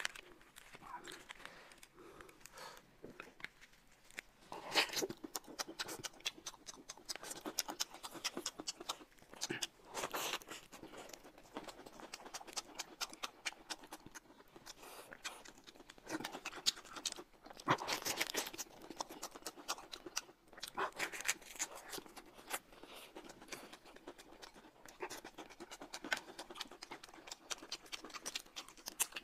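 Close-miked eating sounds: a steady stream of small crackles and rustles as lettuce wraps and pancakes are handled and peeled, with louder crunching and chewing every few seconds.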